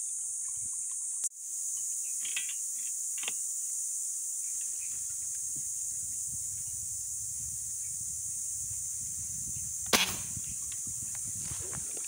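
Steady high-pitched insect chorus from the creekside vegetation, with low rumbling handling noise. A sharp click about a second in is followed by a brief drop in level. A single louder sharp click with a short ring comes near the end.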